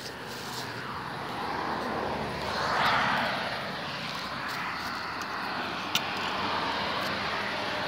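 A passing vehicle: a rush of noise that swells to its loudest about three seconds in and then fades to a steady background hum. A single sharp click comes about six seconds in.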